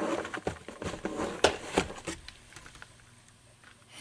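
Clear plastic lure packaging handled and crinkled, with a run of sharp crackles and clicks over the first two seconds, then softer rustling.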